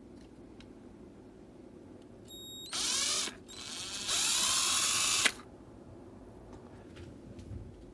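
KIMO 20V cordless drill driver's motor run twice without load, each time spinning up with a rising whine. The second run builds up gradually, holds for about a second and stops sharply.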